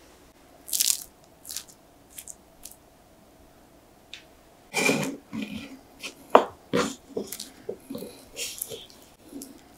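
Scattered light knocks and taps of a kitchen knife and fingers on a wooden cutting board as thin banana slices are handled. A few come early, many more from about five seconds in, the sharpest about six and a half seconds in.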